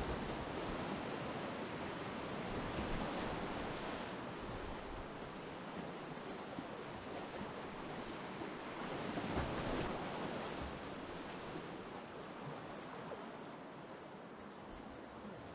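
Whitewater rapids of a river rushing around a kayak, a steady roar of broken water that swells about nine seconds in and eases off near the end.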